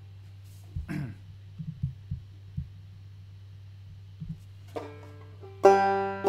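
Open-back banjo in open G tuning, played clawhammer style: a soft note, then loud plucked notes ringing from about five and a half seconds in. Before that there are only a few soft knocks over a low steady hum.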